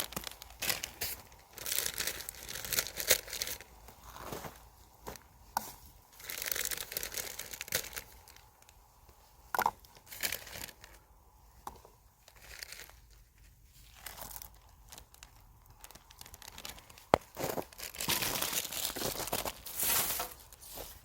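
Irregular crinkling and tearing rustles in uneven bursts, with a few sharp snaps, from dry material being handled.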